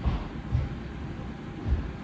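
A British shorthair cat snoring: short, low rumbling pulses at an uneven pace.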